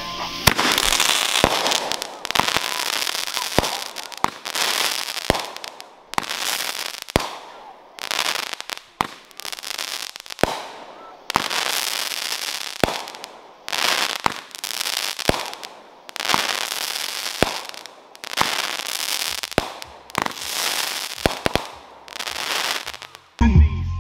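Consumer multi-shot firework cake firing a long run of shots, about one a second: each a sharp launch pop followed by a burst of noise from the shell breaking overhead. It cuts suddenly to music with a heavy bass beat just before the end.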